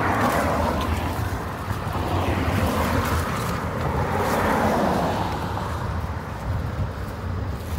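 Cars passing on the road alongside, their tyre and engine noise swelling near the start and again about four seconds in, over wind rumbling on the microphone.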